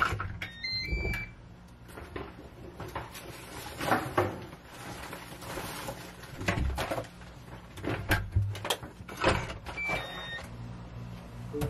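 Irregular knocks, clicks and rustling of things being handled as a person moves about a small room.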